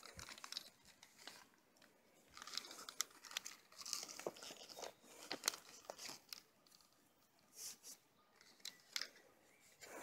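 Faint, irregular rustling and crackling with scattered small clicks; no motor running.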